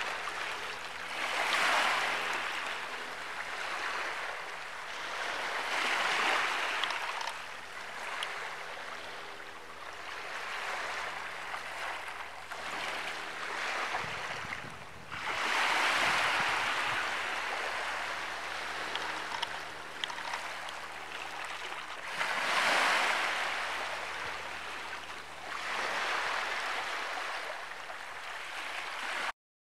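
Small sea waves washing in, a hiss that swells and fades every four or five seconds, over a faint low steady hum; the sound cuts off abruptly near the end.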